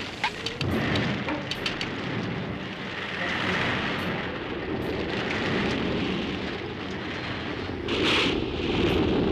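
Cartoon sound effect of a huge spaceship sliding down a collapsing cliff side: a continuous rushing, rumbling noise of scraping hull and falling earth. There are a few sharp cracks in the first couple of seconds and a louder surge about eight seconds in.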